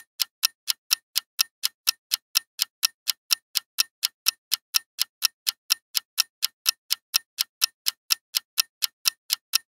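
Countdown-timer ticking sound effect: even, sharp clock-like ticks, about four a second, keeping a steady pace throughout.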